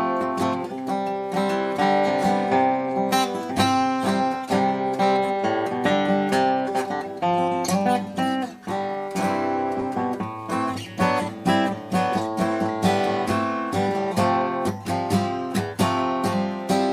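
Washburn Timbrewood WD-48S dreadnought acoustic guitar, fitted with a new bone saddle, played solo in a continuous run of quickly picked notes and chords.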